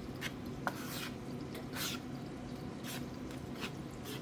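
Fish pieces being dipped and pressed into seasoned flour: soft, irregular scratchy and squishy handling sounds, over a steady low hum.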